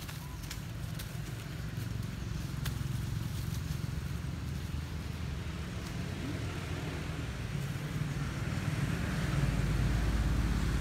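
Low, steady engine rumble of a motor vehicle that grows louder toward the end, with a few light clicks of leaf litter rustling in the first few seconds.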